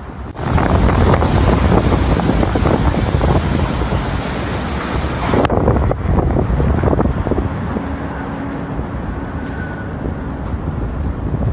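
Hurricane-force wind blowing hard and buffeting the microphone. It cuts in suddenly about half a second in, and the rush changes abruptly to a duller, slightly quieter gusting about five and a half seconds in.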